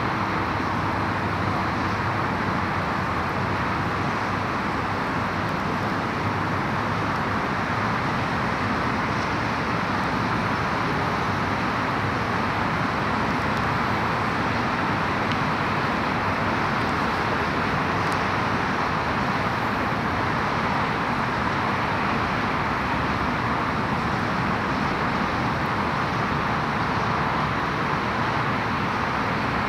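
Steady road traffic noise, an even wash without breaks or rises.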